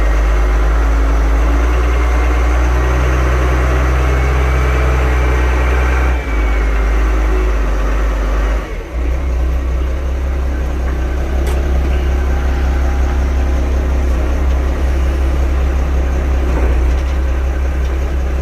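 A 7-tonne forklift's engine running steadily with a deep rumble as the machine drives, its drive now engaging after a stuck inching cable that had held the transmission in neutral was freed. The level dips briefly about six and nine seconds in.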